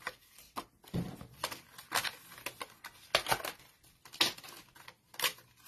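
Cardstock rustling and crackling as die-cut pieces are popped out of a kit sheet and the leftover paper frame is pulled away, with sharp crackles about once a second.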